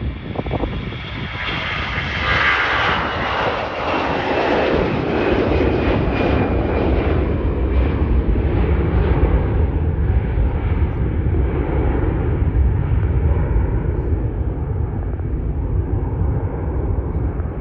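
Airbus A320-214's two CFM56-5B turbofan engines at takeoff thrust as the airliner lifts off and climbs out. A loud, continuous jet noise carries a high whine at first; the whine thins out and a deep rumble takes over as the aircraft climbs away.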